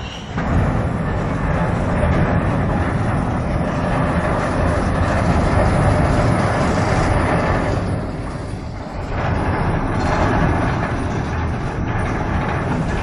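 Loud, continuous rumble of a large ship's steel bow ploughing into a quayside steel loading tower as the structure buckles and collapses. It eases about eight seconds in, then rises again.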